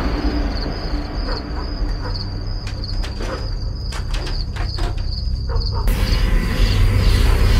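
Crickets chirping steadily, about two pulses a second, over a low rumble, with a few sharp clicks and knocks in the middle. About six seconds in, a broader noise swells up and gets louder.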